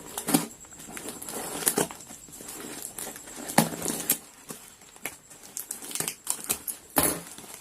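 Packaging crinkling and tearing as a parcel is opened by hand: an irregular rustle broken by several sharp snaps and crackles.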